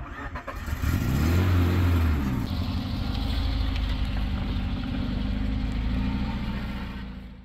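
A motor vehicle engine revs up, its pitch rising over the first couple of seconds, then runs steadily at the higher speed before fading out abruptly at the end.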